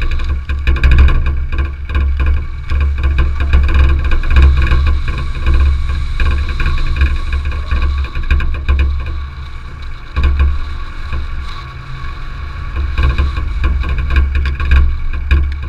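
A car driving along a gravel road, heard from a camera mounted on it: a strong low rumble of tyres and engine, with a steady mechanical whine above. It eases off a little partway through and then builds again.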